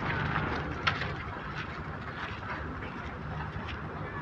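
Harbour ambience: a steady low hum with short, sharp high-pitched sounds scattered over it.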